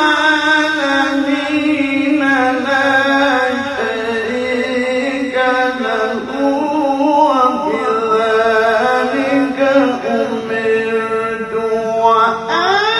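A solo reciter chanting the Quran in the melodic tilawah style: long held notes with winding, ornamented runs, one voice without accompaniment.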